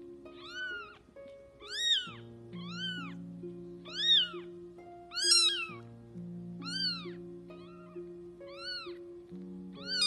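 A very young kitten meowing over and over, about one high cry a second, each rising and then falling in pitch. Soft background music plays underneath.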